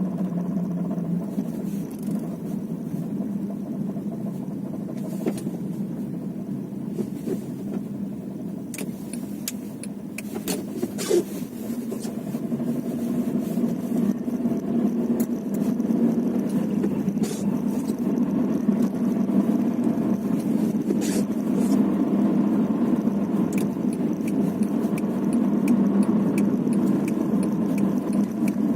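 Car on the move, its engine and road noise a steady hum that grows louder about halfway through. Scattered sharp knocks come through it, irregularly and in small clusters: the knocking that shows up while driving.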